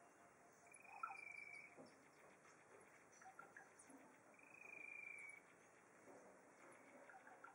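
Faint insect trill: a steady high-pitched buzz about a second long, heard twice a few seconds apart, over quiet outdoor ambience with a few soft ticks.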